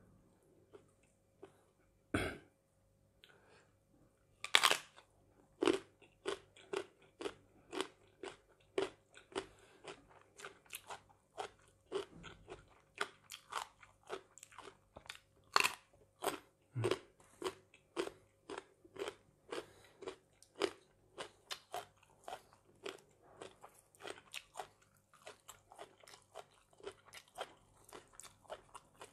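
A person biting and chewing crunchy raw vegetables close to the microphone: a sharp bite about two seconds in and a louder one a couple of seconds later, then steady crunching about twice a second.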